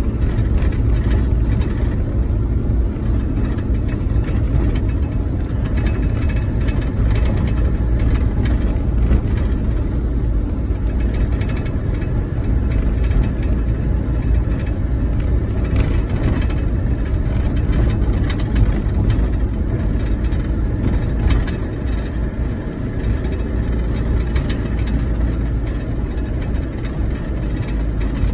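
Car engine and tyre rumble heard from inside the moving car's cabin: a steady low drone.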